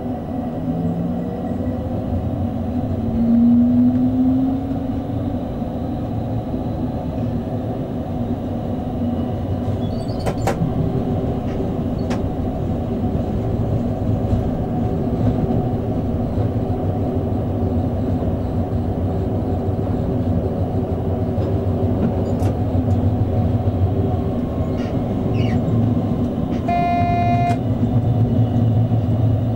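Hamburg S-Bahn electric multiple unit running on the rails, heard from the driver's cab: a steady rumble of wheels and running gear. The traction motors give a rising whine as the train pulls away in the first few seconds. There are a few sharp clicks along the way and a short high tone near the end.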